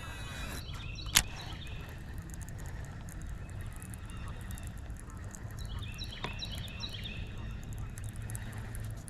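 Geese honking in two bouts of short repeated calls, about five seconds apart, over a steady low rumble. A single sharp click comes about a second in.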